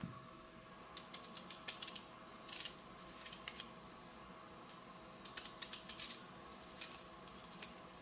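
Slices of raw red onion being pushed apart into rings by hand: clusters of small crisp snapping clicks as the layers break away from each other, coming in several short runs with pauses between.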